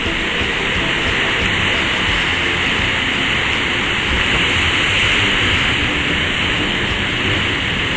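Ocean surf breaking and foaming against black lava rock, a steady continuous rush of churning water.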